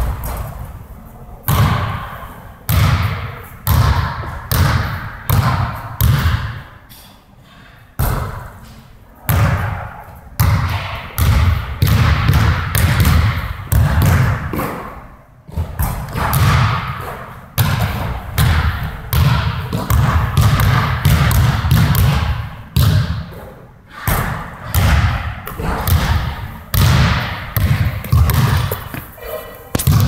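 A basketball striking the rim and backboard and bouncing on the gym floor again and again as free throws are shot in quick succession. Each hit is a heavy thud that echoes around the hall.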